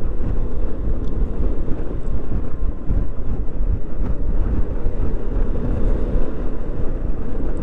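Yamaha XMAX 300 scooter riding at road speed: steady wind rush on the microphone over its single-cylinder engine running evenly.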